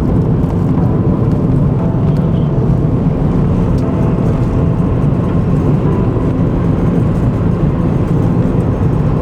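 Car driving, with a steady rumble of road and engine noise inside the cabin. It cuts off abruptly near the end.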